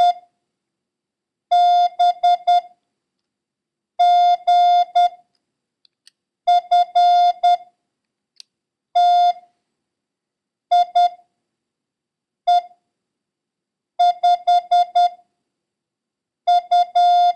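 Morse code practice tone, a steady mid-pitched beep keyed in dits and dahs. It sends about eight single characters, one every couple of seconds with silent gaps between them: a copying drill of letters and numbers from earlier lessons.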